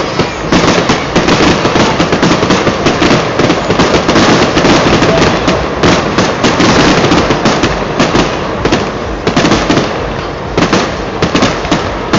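Fireworks display: a dense, rapid run of loud bangs and crackles from many shells bursting together, easing briefly about ten seconds in before picking up again.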